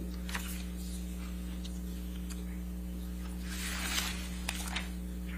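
Quiet courtroom room tone with a steady electrical hum, a few faint clicks and a soft rustle of paper about four seconds in, as deposition pages are leafed through.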